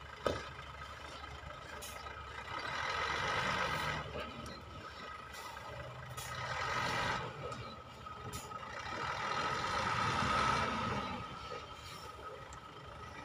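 Heavy dump truck's diesel engine running while the truck tips and unloads sand. It swells in revs three times as the truck eases forward to let the load slide out of the raised bed. A short sharp knock sounds just after the start.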